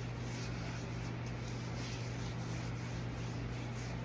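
Steady low electrical hum with a faint hiss, unchanging throughout: room tone with no distinct event.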